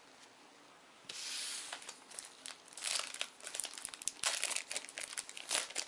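A trading-card booster pack wrapper crinkling and tearing as it is opened by hand. The sound starts about a second in, with a run of crackles from about three seconds in.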